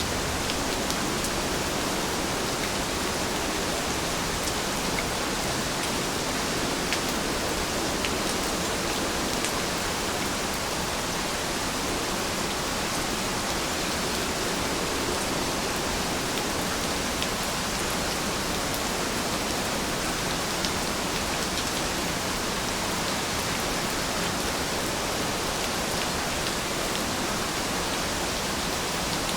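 Steady, even rain falling, with faint scattered drop ticks.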